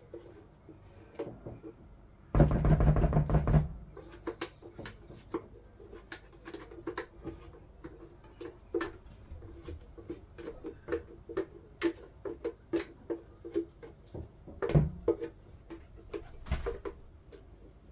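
Repeated knocks and scrapes of a utensil against a container as thick bean batter for akara is poured out into a bowl. A loud hum lasting just over a second comes about two seconds in.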